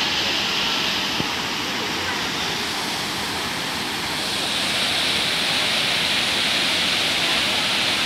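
Steady rush of a mountain waterfall pouring down a rock face in two strands, dipping slightly about three seconds in and then swelling again.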